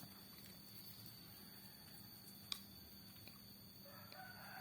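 Near silence with a faint steady hum and one sharp click about halfway through; a faint voice starts near the end.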